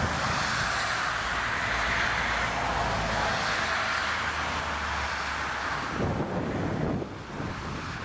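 Jet airliner's engines running on landing approach, mixed with strong wind buffeting the microphone. The sound drops suddenly about seven seconds in.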